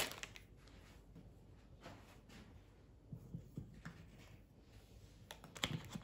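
Faint taps and soft knocks of hen's eggs being set down on a cloth-covered table, a few around the middle and a small cluster near the end, with light handling of a paper-wrapped packaged chicken.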